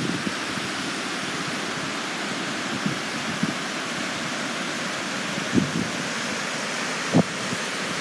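Steady rushing hiss of flowing water from a canyon stream and waterfalls, with a few soft low thumps.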